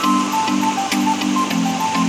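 Background music: soft sustained chords changing about twice a second, with a simple melody of short high notes above them.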